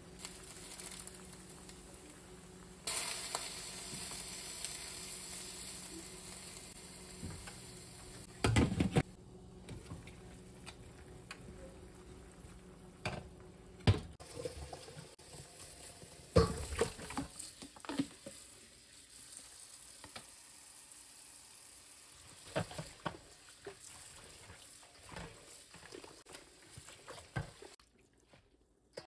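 Chicken leg quarters sizzling in a stainless steel wok, in a steady sizzle that gets louder about three seconds in, with sharp clinks of metal tongs against the pan as the pieces are handled.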